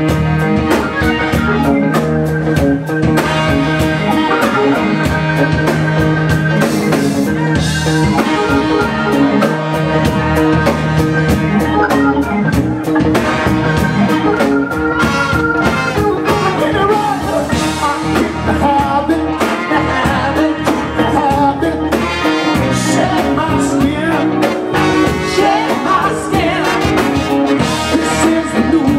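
Live horn band playing a soul-rock cover: trombone, trumpet and saxophone over electric guitar and drums with a steady beat, and a male lead singer's voice.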